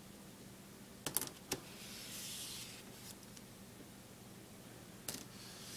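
Box cutter working the plastic shrink wrap on a cardboard box: a couple of sharp clicks about a second in, a short scratchy hiss of the blade on the plastic a little after two seconds, and more clicks near the end.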